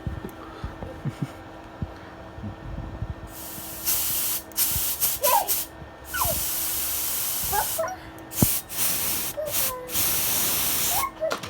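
Several bursts of steady hissing blown air, each about a second long, switched on and off abruptly. Short squeaks that rise and fall in pitch come between them.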